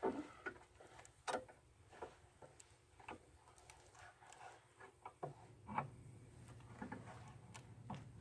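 Faint, irregular metal clicks and taps as a screw clamp on a band sawmill is backed off and snugged up by hand.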